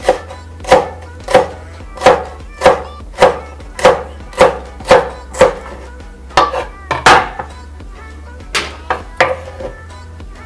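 Kitchen knife slicing a long green chili pepper on a wooden cutting board: a steady run of sharp knocks, one roughly every two-thirds of a second, then a few quicker uneven cuts and a last handful near the end.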